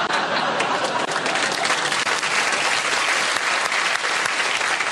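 Studio audience applauding: a dense, steady clatter of many hands clapping.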